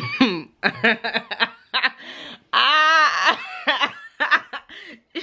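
A young woman laughing in a string of short bursts, with one longer, wavering laugh about two and a half seconds in.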